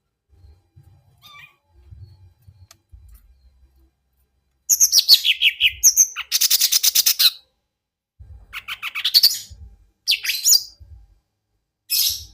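Mini cucak ijo (leafbird) giving an unusual call that its owner calls strange. After about five seconds of faint low thuds, it gives loud harsh chirps: a falling sweep, then a fast buzzy rattle. Shorter bursts of chirps follow, the last one near the end.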